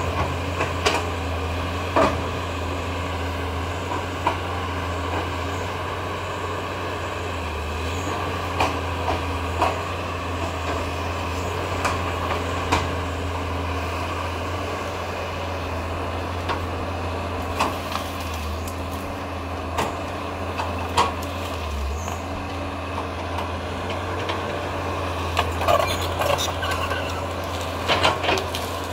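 Caterpillar 320C L hydraulic excavator's diesel engine running steadily under load, with scattered sharp cracks and knocks of wood and debris as it clears brush, several in a cluster near the end.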